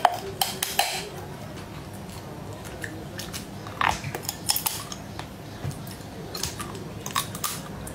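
Cooked shellfish shells cracking and crunching as they are bitten, with wet eating sounds. The crackles come in three bursts: near the start, about four seconds in, and near the end.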